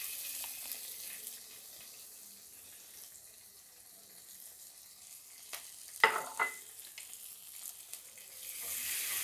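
Freshly added sliced onions sizzling in hot ghee and mustard oil in a clay pot. The sizzle is strongest at first, dies down, then picks up again near the end as they are stirred with a wooden spatula. Two sharp clinks about six seconds in.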